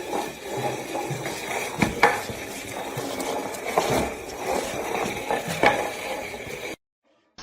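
Irregular clinks and knocks of hard objects over a steady background noise, the sharpest around two seconds in, cutting off abruptly near the end.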